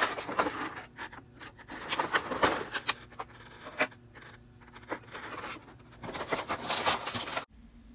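Clear plastic blister tray of toy packaging being handled and lifted, crinkling and scraping with small clicks, until the sound cuts off suddenly near the end.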